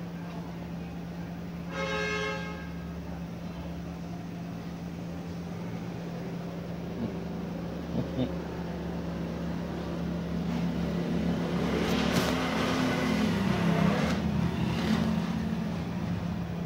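Road vehicle passing in the street, building from about ten seconds in and loudest a few seconds later before fading, over a steady low hum. A short horn toot sounds about two seconds in.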